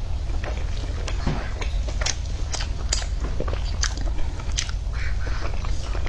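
A person biting and chewing crispy fried chicken close to the microphone: irregular crisp crunches, one or two a second, over a steady low hum.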